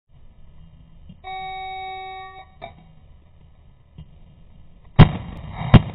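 Electronic shot-timer start beep, a single steady tone about a second long. Nearly three seconds later come two rifle shots about three quarters of a second apart, the loudest sounds here.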